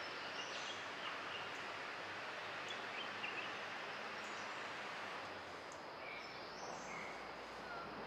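Forest ambience: a steady hiss with faint, scattered short chirps of birds.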